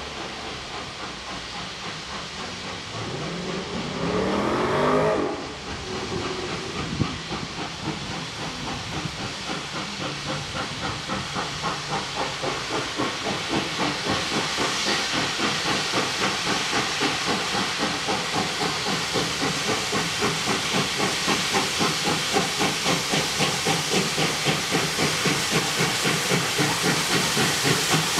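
Steam locomotive 5917, a NSW 59 class 2-8-2, approaching: its whistle sounds about four seconds in, rising in pitch as it opens, then the exhaust beats come through over a hiss of steam, growing steadily louder, about two beats a second as the engine draws near.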